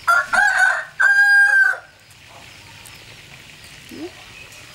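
A rooster crowing once. It is a loud two-part call, the second part held on one pitch, and it is over within the first two seconds.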